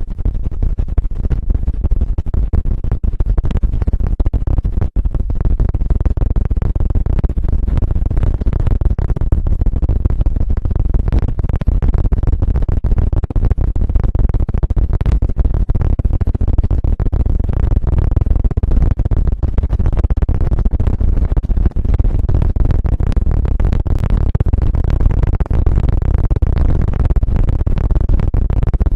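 Fast, continuous rubbing and scratching right on the microphone, a dense stream of scratches over a heavy rumble: the ASMR 'helicopter' ear-stimulation trigger.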